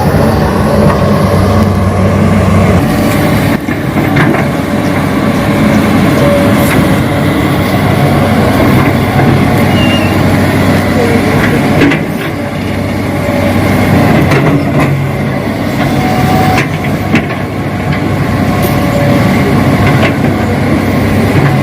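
Remote-control Hitachi model excavator working: its motors and pump run steadily, with a few sharp clicks and knocks from the machine working the ground.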